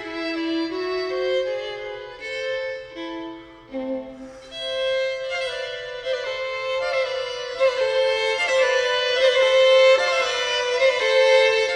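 Two violins playing a bowed classical duet, with a brief quieter passage about four seconds in, then fuller, louder playing.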